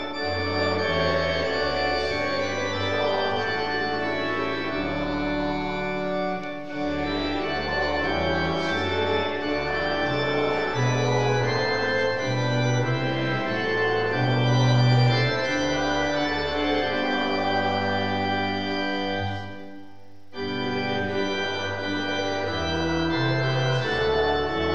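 Church organ playing a hymn tune in sustained chords that change every second or so, with a short break between phrases about twenty seconds in.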